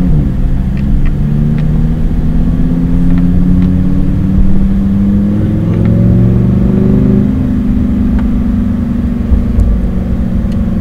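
Lamborghini Huracán Performante's V10 engine, heard from inside the cabin, pulling gently at low speed. Its pitch drops at the very start, then climbs slowly for about seven seconds and holds steady.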